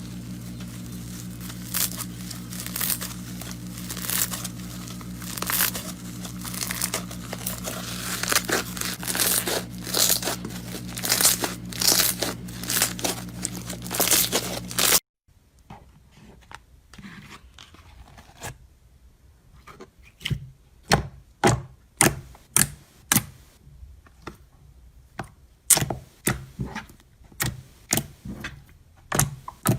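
Slime being worked by hand, crackling and crinkling, over a steady low hum. About halfway through, after a cut, a quieter clip of sharp popping clicks comes at about one to two a second.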